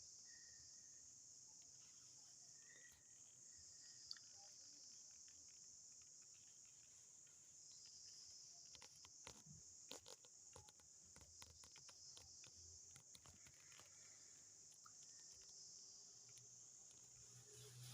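Faint, steady high-pitched chirring of insects, with scattered small clicks and rustles through the middle stretch.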